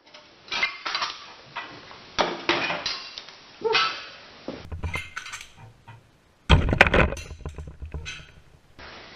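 Metal parts and tools clinking and clanking as they are handled and set down, in irregular knocks, with one heavy clunk about two-thirds of the way through.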